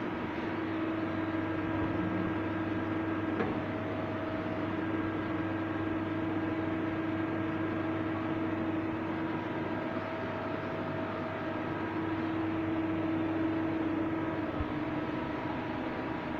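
Star RNC-16 CNC lathe running: a steady machine hum with several held tones that fade and come back a little as it works.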